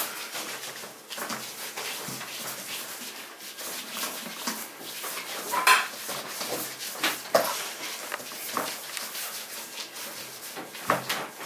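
Hands rolling soft quark dough into long ropes on a tabletop, with scattered light knocks and taps against the table and baking trays.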